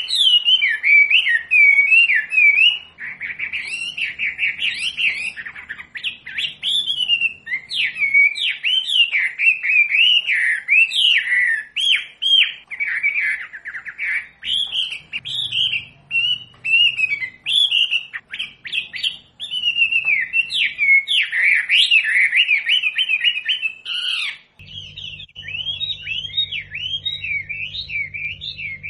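Wambi bird singing a fast, continuous song of quick rising and falling chirps and trills. Near the end a low steady hum joins in underneath.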